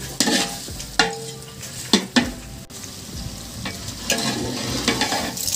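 A long metal ladle stirs thick chicken biryani masala in a large aluminium pot, scraping and knocking against the pot's sides several times. The masala sizzles on the heat underneath.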